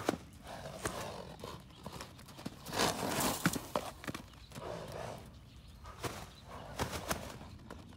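Chestnut Arabian stallion moving loose on sand: irregular hoofbeats and thuds as it trots and bucks, with a louder rushing noise about three seconds in.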